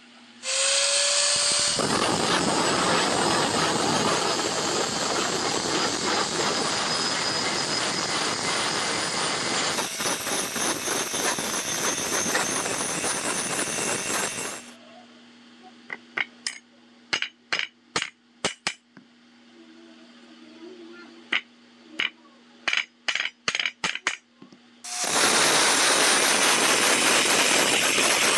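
Angle grinder spinning up, then grinding the edge bevel of a forged steel knife blade with a loud, harsh, steady grinding noise that stops about halfway through. A run of sharp metallic clinks follows, and the grinding starts again near the end.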